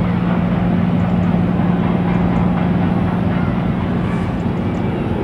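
Steady low engine drone: a constant hum under an even rushing noise, unchanging throughout.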